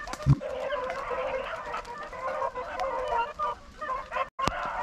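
A pack of beagles baying on a rabbit's trail, many short overlapping calls from several dogs. A brief low thump comes about a third of a second in.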